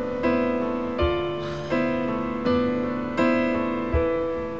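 Background music: soft keyboard chords, with a new chord struck about every three-quarters of a second and fading between strikes.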